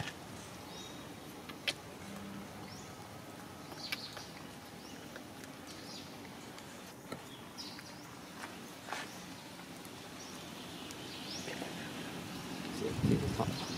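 Outdoor ambience: scattered short high chirps and a few faint clicks, with a motor vehicle passing near the end.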